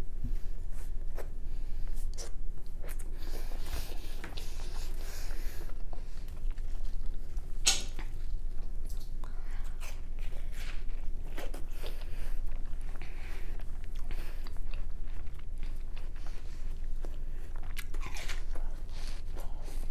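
A boy biting and chewing watermelon fast, with wet, crunchy bites at irregular moments and a few louder ones about eight seconds in and again near the end.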